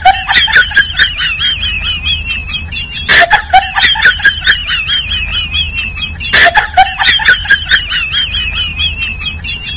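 Bird-like chirping and clucking calls, a fast warbling run of notes with sharp clicks. The same phrase starts over three times, about every three seconds, each time opening with a short loud burst, and it stops abruptly at the end.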